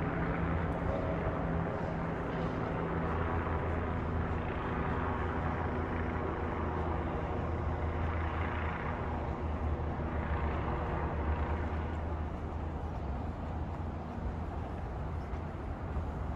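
City street traffic: a steady low engine hum with vehicles passing, swelling louder twice around the middle.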